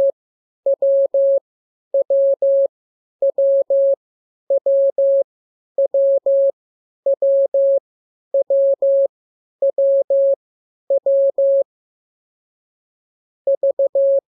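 Morse code sent as a steady mid-pitched beep tone: the same short character of dots and dashes played over and over, about once every second and a quarter, ten times. After a pause of about two seconds a quicker run of beeps starts near the end.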